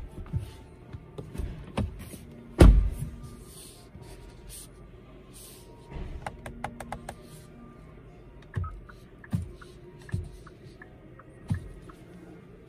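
Faint background music with a few dull thumps, the loudest about two and a half seconds in, and a quick run of sharp clicks about six seconds in.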